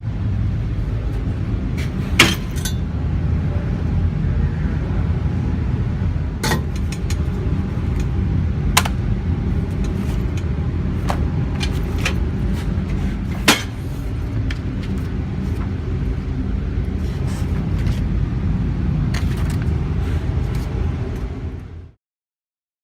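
Steady low rumble of welding-shop machinery, broken by a few sharp clicks. It cuts off suddenly near the end.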